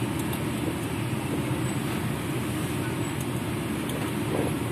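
Truck engine running and road noise heard from inside the cab as the truck is driven: a steady, even low rumble.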